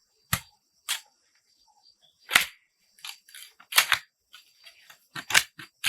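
Five sharp striking cracks spaced unevenly, roughly one to one and a half seconds apart, with a few fainter knocks between them.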